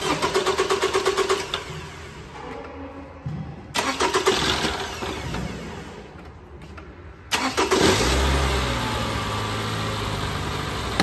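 Toyota RAV4 being started: the starter cranks the engine in quick even pulses, then it dies away; a second try near four seconds in also fades out; on the third try, just past seven seconds, the engine catches and settles into a steady idle. This long, repeated cranking is the hard-starting condition the video sets out to fix.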